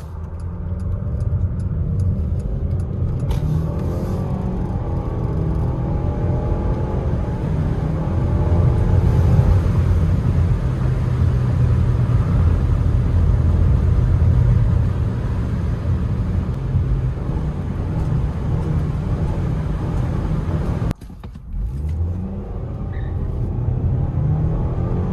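Loud tire roar from a BMW SUV driving on the road: a heavy, steady low rumble with a wavering hum above it. It drops out sharply for a moment about four seconds before the end.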